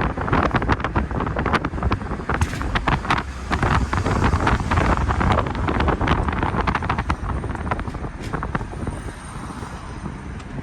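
Wind buffeting the microphone over a steady low rumble, with many short clicks and knocks scattered through.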